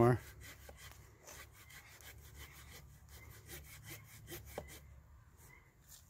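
A handsaw cutting through a 10-inch alder trunk in quiet, evenly repeated push-pull strokes. This is the back cut of a tree felling, nearly through to the notch.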